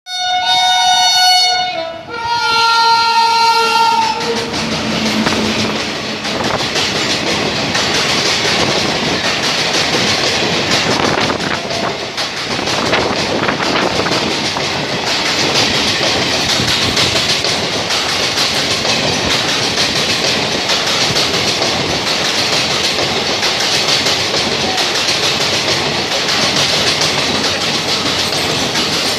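An Indian Railways WAP-5 electric locomotive's horn sounds two weird-sounding blasts of about two seconds each, the first changing pitch partway and the second lower. The train then runs past at speed, its wheels clattering over the rail joints.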